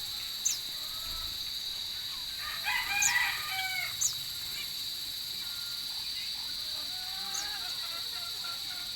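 A rooster crows once, about three seconds in, the loudest sound here. Short high chirps from small birds come now and then, over a steady high-pitched drone.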